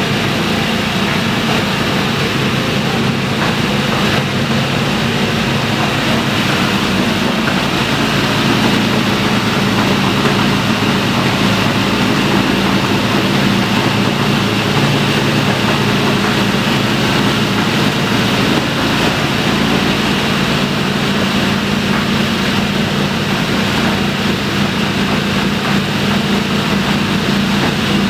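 Air-cooled radial aircraft engine on a hot-rod truck, running steadily on its first firing with an even, unchanging drone.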